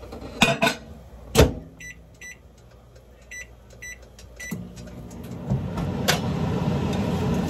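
Microwave oven being started: a door shuts with a clunk, a few short keypad beeps follow, then the oven starts running with a steady low hum that grows louder.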